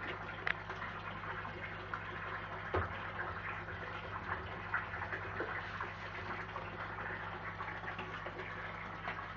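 Water splashing and bubbling steadily in a koi fry tank, with a few small sharp splashes, over a steady low hum.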